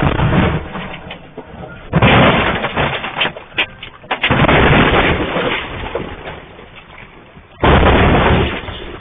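Rockfall: giant boulders crashing and tumbling down a slope in several heavy rumbling surges, with sharp cracks of rock striking rock.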